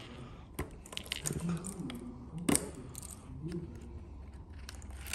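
Motorcycle key ring jangling, with a few sharp clicks as the key works the fuel-tank cap lock and is then pushed into the ignition switch. The loudest click comes about two and a half seconds in.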